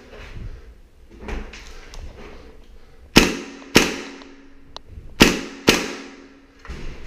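Gas blowback airsoft rifle firing four sharp shots in two quick pairs, the pairs about two seconds apart. Each shot echoes briefly off the walls of a small bare room, and a few soft knocks come before the first shot.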